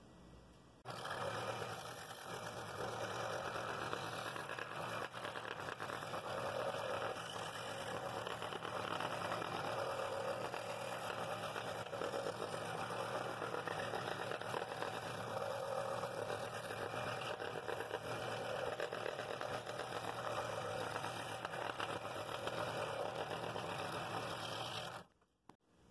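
Scroll saw running and cutting through a shop-made walnut-and-aspen plywood ring blank: a steady machine buzz with the blade chewing through the wood. It starts about a second in and cuts off abruptly near the end.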